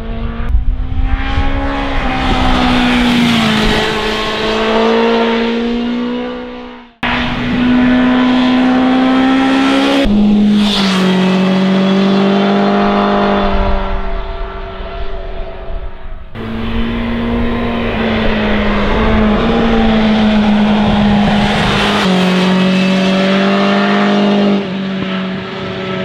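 BMW S1000 XR motorcycle's inline-four engine running hard through bends, its pitch holding, stepping and sliding with throttle and gear changes as it passes. The sound comes in several separate passes joined by sudden cuts, about 7, 10 and 16 seconds in.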